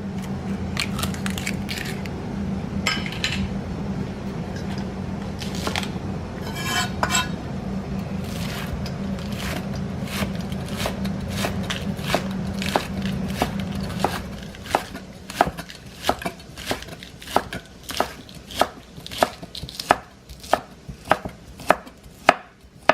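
Kitchen knife chopping white onion on a cutting board, sharp regular strokes about two a second through the second half. Before that comes a steady low hum with scattered clatters.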